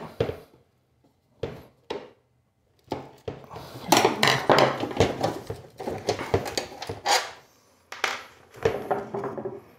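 Metal clinks and clatter of screwdrivers and screws being worked and handled on a steel oven door: two light clicks about a second and a half in, then a busy run of clinks and knocks from about three seconds in.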